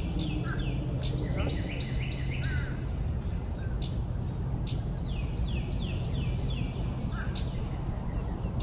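Insects in the mangroves droning on one steady high note, while a bird calls three times in quick runs of short falling notes. A low steady hum runs underneath, and a few faint ticks come in the second half.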